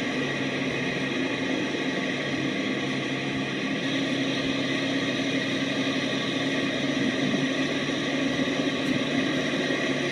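Steady mechanical hum with a rushing noise and a low drone held at one pitch.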